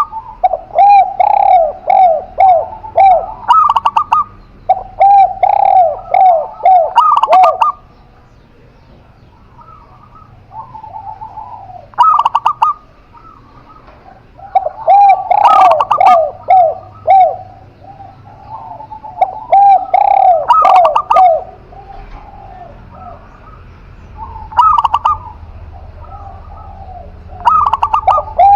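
Spotted dove and zebra dove cooing in turn, loud and close. Each phrase lasts one to three seconds and is a run of short, repeated, rounded coo notes, with a few seconds' pause between phrases.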